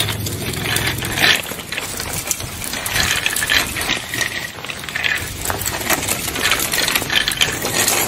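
Small wire shopping cart rattling and clattering continuously as it is pushed along asphalt, its wheels and basket knocking irregularly.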